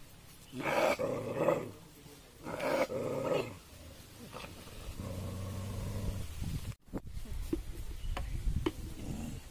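Dogs growling at each other while eating together: two short snarls in the first few seconds, then a low, steady growl. A few light clicks near the end.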